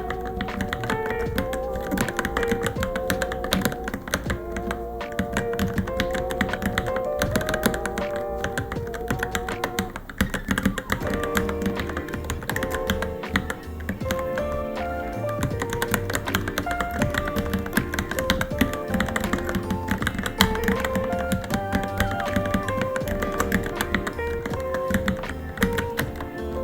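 Continuous typing on a Varmilo Minilo keyboard, with many quick key clacks a second in an uneven stream. Background music with melodic notes plays alongside.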